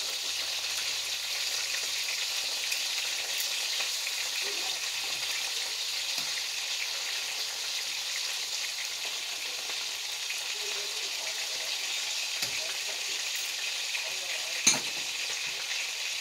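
Oil sizzling steadily in a wok as food fries, with metal tongs turning it. A sharp metal clack of the tongs against the wok sounds about a second and a half before the end.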